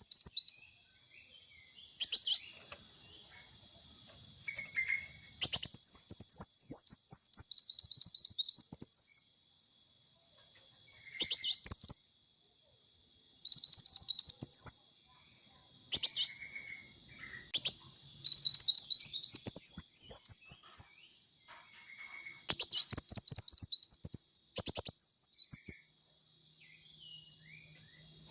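Sunbird singing in repeated fast, high twittering phrases, each a quick run of sharp chirps lasting one to three seconds, coming every few seconds. A steady thin high whine runs underneath.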